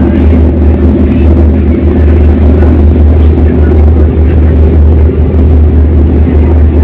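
A passenger ferry's engines running with a steady, loud low drone, over a constant rush of noise from the moving ship.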